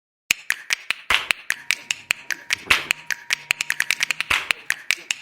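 Quick, uneven clicks and taps, several a second, from hands working parts inside a coffee vending machine, with a faint steady hum underneath.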